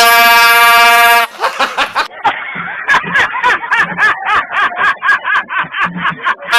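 A loud air horn blast of about a second, followed by several seconds of laughter in quick repeated bursts.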